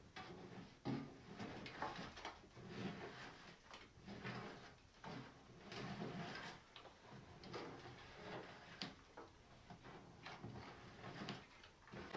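Faint, irregular knocks, clicks and rustles of household objects being handled, with no speech.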